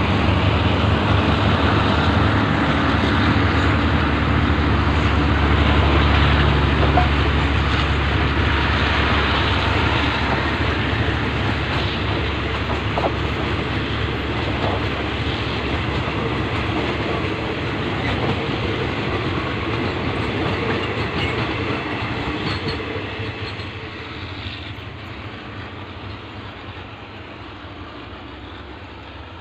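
Red-and-cream passenger coaches of a State Railway of Thailand train passing at speed, their wheels running loudly over the rails. The sound fades over the last several seconds as the end of the train draws away.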